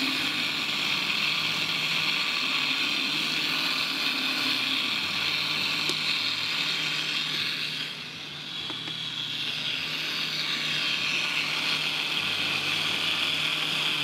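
Countertop blender running steadily, grinding soaked raw chickpeas and brown rice with water into a smooth batter. It dips briefly in loudness a little over halfway through, then carries on.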